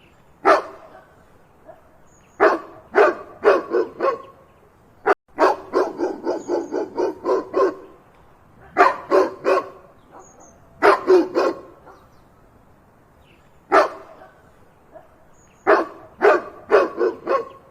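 A dog barking loudly in volleys of one to five barks with short pauses between them, including a quick run of about four barks a second around the middle.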